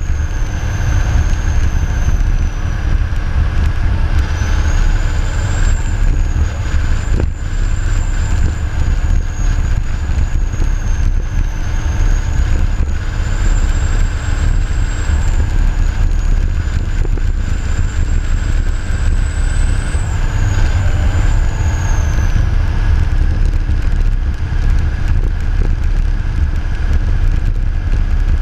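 Large bucket loader's diesel engine running under load, a steady heavy rumble. A thin high whine wavers over it and stops a little over three quarters of the way through.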